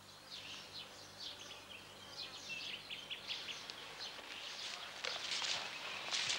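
Birds chirping in short high twitters, with the soft footfalls of a horse walking on grass growing louder near the end.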